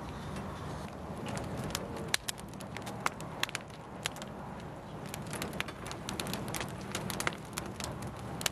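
Open fire crackling: irregular sharp pops and snaps over a steady rushing noise, the sound of pottery being fired.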